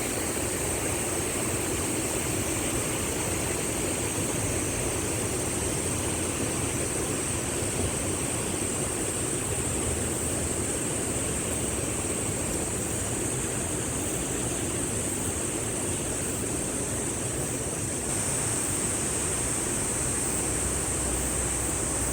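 Steady rushing of a mountain valley stream, an even watery hiss with no breaks.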